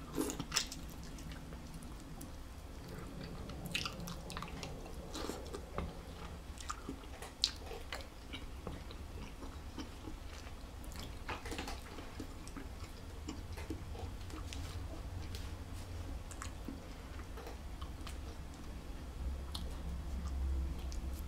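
A person chewing a mouthful of seafood close to the microphone: scattered small clicks and wet chewing noises over a low steady hum.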